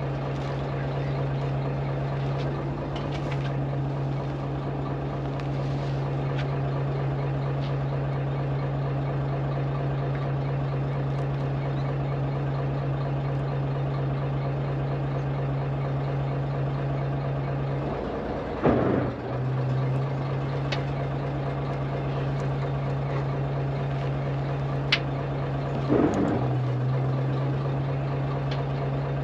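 A chartered fishing boat's engine idling with a steady low hum, broken twice by a brief louder knock or bump.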